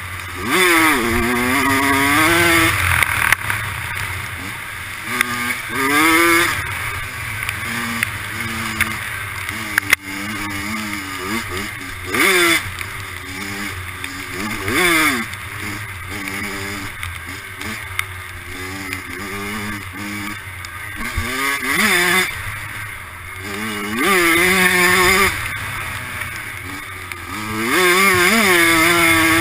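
Dirt bike engine revving hard and easing off again and again as the rider opens and closes the throttle, its pitch climbing in surges every few seconds.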